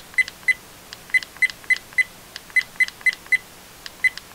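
ICONNTECH 4K action camera giving a short high beep at each button press while its setup menu is scrolled, about a dozen beeps in quick runs of three or four with brief pauses between.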